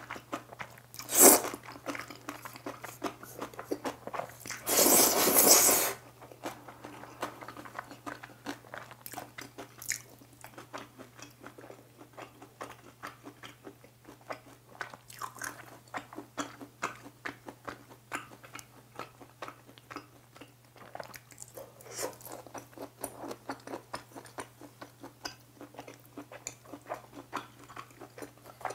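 Close-up eating sounds of black-bean sauce noodles, beef and kimchi: wet chewing with a steady run of small mouth clicks and smacks. Noodles are slurped loudly about a second in, and again for longer, about a second and a half, around five seconds in. A faint steady low hum sits underneath.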